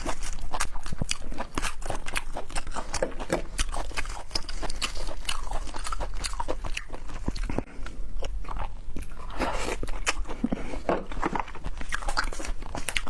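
Chewing and crunching of food up close: a dense, irregular run of crisp clicks.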